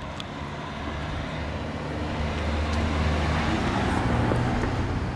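A box truck driving past on the road, engine and tyre noise growing louder as it approaches and passing close about four seconds in, then starting to fade.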